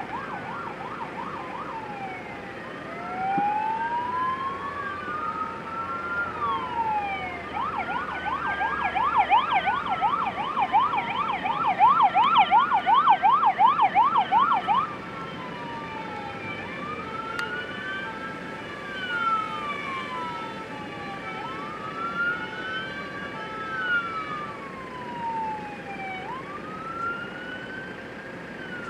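Emergency vehicle sirens as fire engines arrive. A loud siren wails slowly up and down, then switches to a fast yelp about seven seconds in and cuts off suddenly about halfway through. After that, a fainter siren keeps wailing up and down.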